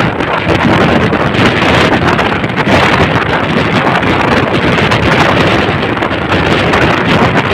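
Loud wind buffeting on the microphone from travelling at speed, with the running noise of the vehicle underneath.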